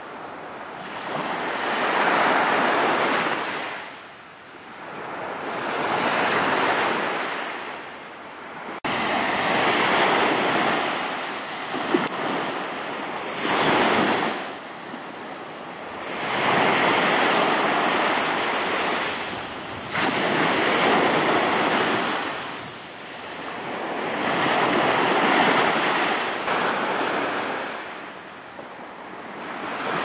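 Baltic Sea surf washing onto a sandy beach, the sound of the waves swelling and ebbing every four seconds or so. The level jumps abruptly about nine and twenty seconds in.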